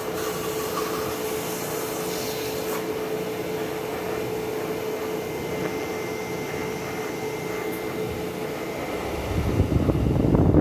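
Laser engraver running as it burns a design into canvas: a steady fan-like whir with a constant hum tone. About nine seconds in, a louder low rumble swells up.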